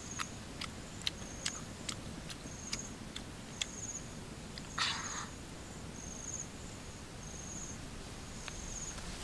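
Wet smacking clicks of someone chewing with the mouth close to the microphone, two or three a second, stopping about four seconds in, with a short rustle about five seconds in. Behind it an insect chirps in short high trills about once a second.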